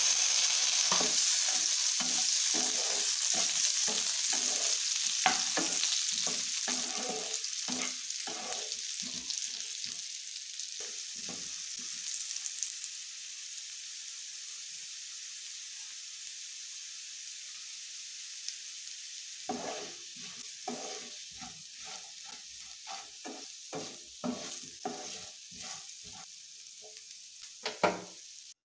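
Baby potatoes sizzling as they fry in hot oil in a nonstick pan, the sizzle loudest just after they go in and dying down gradually. A spatula stirs them, with scraping and the potatoes knocking against the pan, in spells through the first twelve seconds and again from about twenty seconds in.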